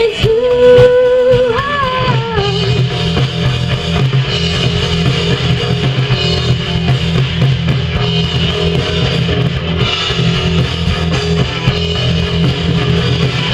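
Live rock band playing an instrumental passage. Near the start the lead guitar holds a long note and bends it, over bass and drums.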